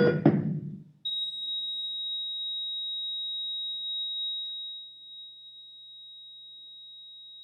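A sudden loud hit right at the start that dies away within a second, then a steady high-pitched pure tone, a ringing-in-the-ears effect, which drops to a quieter level about two-thirds of the way through.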